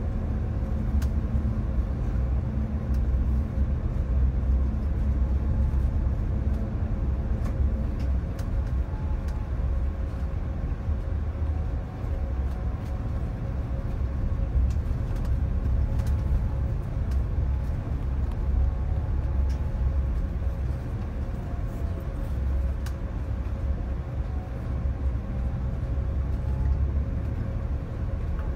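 Steady low rumble of a bus's engine and tyres on the road, heard from inside the cabin, with a faint steady hum above it.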